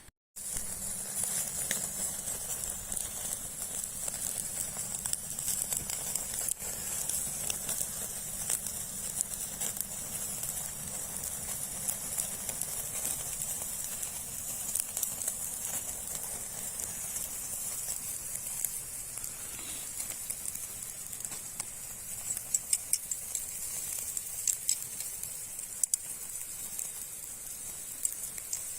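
Food sizzling over heat: a steady high hiss with scattered sharp pops and crackles, a few louder pops coming near the end.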